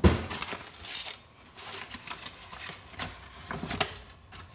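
Soft scraping and rustling as flour is measured out with a stainless steel measuring cup, with a knock right at the start and a few light clicks.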